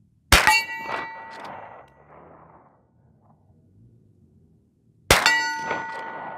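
Two shots from a Rossi R92 lever-action rifle in .44 Magnum, about five seconds apart, each sharp crack followed by a long metallic ringing that slowly dies away.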